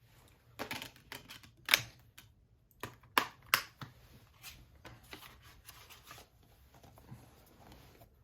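Handling of a plastic Blu-ray case and its cover: irregular clicks, taps and rustles, with a few sharp clicks in the first four seconds and softer rustling after.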